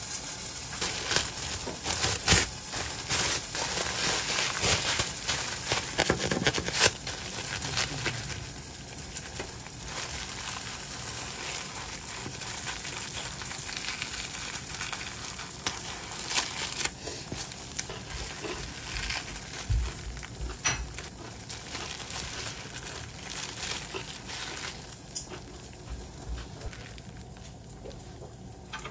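Plastic cling wrap crinkling and rustling as a sandwich is wrapped and handled, with frequent sharp clicks and knocks, among them a knife cutting through the wrapped sandwich onto a wooden board. The rustling is densest in the first several seconds and grows fainter near the end.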